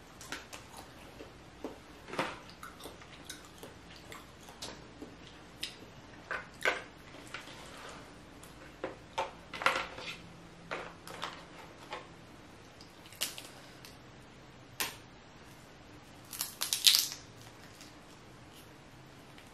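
Hands-on eating of a saucy seafood boil: shellfish shells being cracked and peeled, wet squishing of sauce-covered shrimp and crab, and chewing, heard as scattered clicks and crunches. The loudest is a quick run of cracks near the end.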